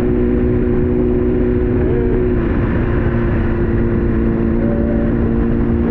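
Sport motorcycle engine running steadily at cruising speed, with heavy wind rumble on the helmet-camera microphone. The engine note wavers briefly about halfway through, then settles again.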